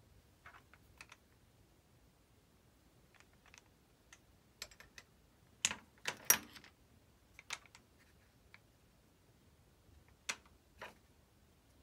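Irregular light clicks and taps of small parts being handled as RC jet landing gear struts are turned over and checked. A short cluster of louder knocks comes about six seconds in.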